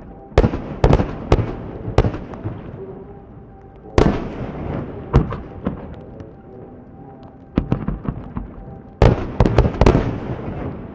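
Fireworks going off: clusters of sharp bangs and cracks. There is a volley about a second in, single bangs around four and five seconds, and a dense volley near the end.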